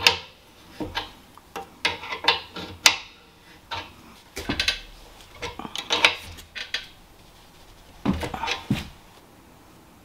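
Open-end wrench working a fitting on the air compressor's pressure switch manifold: metal clinks and scrapes in several short runs, the sharpest clink at the very start.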